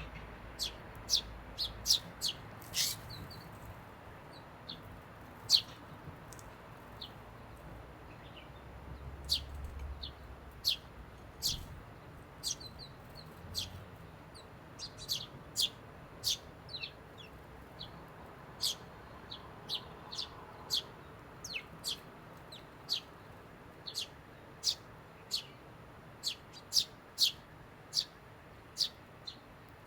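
Eurasian tree sparrows chirping: a steady run of short, sharp chirps, about one or two a second, with a few softer twittering notes in between.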